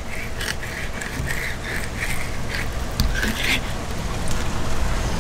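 Fillet knife sawing between the skin and flesh of a black belly rosefish fillet in short repeated strokes as the fillet is skinned, the strokes stopping after about three and a half seconds. A steady low rumble runs underneath.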